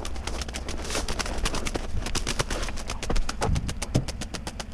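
A shot, dying grouse beating its wings against a gravel road in its death throes: a rapid, even flutter of wingbeats, many a second, with a few heavier thumps around three seconds in.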